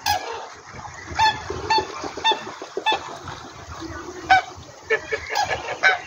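Geese honking: a string of short calls, about nine in six seconds, at uneven intervals.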